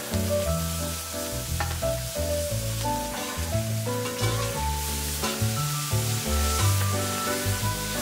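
Food sizzling as it fries in a pan, a steady hiss, under background music.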